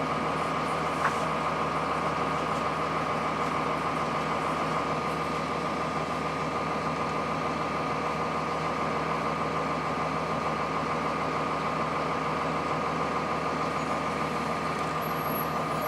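Cummins ISC straight-six diesel of a 2002 Blue Bird CS transit bus running steadily, heard from inside the bus, with one short click about a second in.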